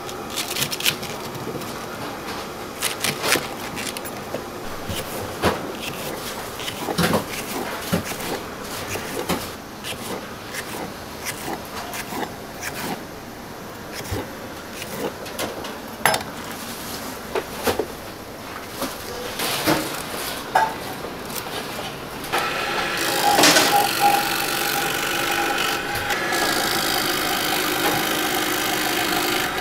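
Kitchen knife cutting long Japanese negi on a wooden cutting board: scattered, irregular chops and knocks. About three-quarters of the way through, an electric vegetable slicer starts and runs steadily with a mechanical hum as it slices the negi into rings, louder than the knife work.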